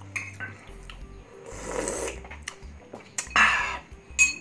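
Mukbang eating sounds: chewing with a full mouth and heavy breaths through the nose about every two seconds. Near the end comes a short ringing clink, like a metal spoon against a glass bowl.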